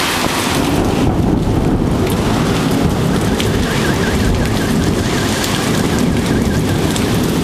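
Heavy tropical downpour pouring down steadily, with a long low rumble of thunder rolling under it.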